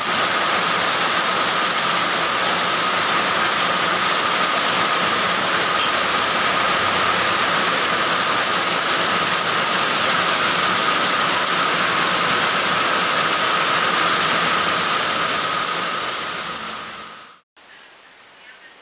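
Steady heavy rain falling, a dense even hiss of drops on wet ground and leaves. It fades and stops abruptly about seventeen seconds in.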